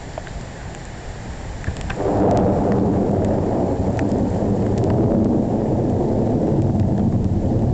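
Thunder: a long low rumble that comes in suddenly about two seconds in and keeps rolling, after a nearby lightning flash. Scattered raindrop ticks throughout.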